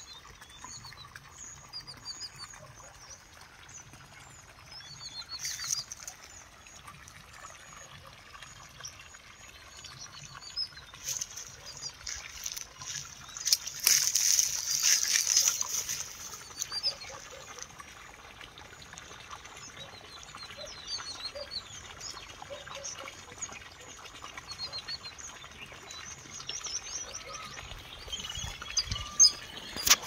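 Many small birds chirping and twittering in the background, with a louder rustling noise for about two seconds midway.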